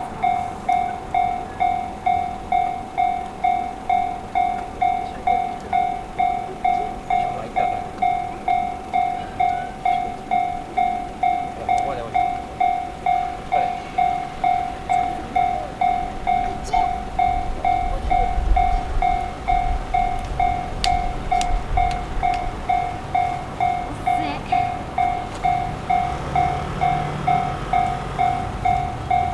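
Japanese railway level-crossing warning bell ringing steadily, one pitched clang repeating about twice a second. A low rumble joins in from about eighteen seconds in.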